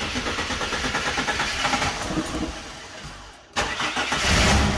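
The EL/EF Ford Falcon's engine, which has sat unstarted for about two and a half years, turning over and starting. After a sudden short break about three and a half seconds in, it runs with a steady low sound near the end.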